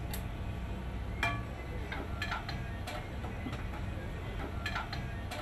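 Kitchen clatter at a sandwich counter: scattered sharp clinks and taps of utensils and dishes, about ten over a few seconds, over a steady low background rumble.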